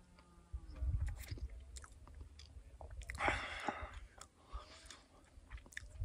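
A person chewing and crunching food, most likely an energy bar, with scattered small clicks and a louder crunch about three seconds in.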